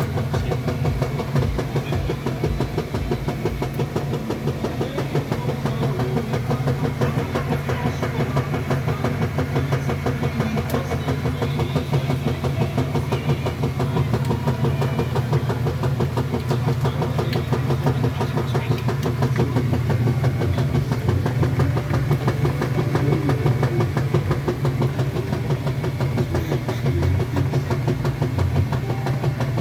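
Kenmore washing machine running: a steady, loud low motor hum with a fast, even pulse, unchanged throughout.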